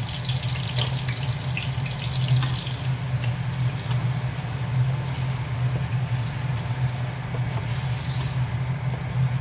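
A washing machine runs with a steady low hum and the wash of water inside it. Scattered light clicks come from a spatula stirring spice paste in a wok.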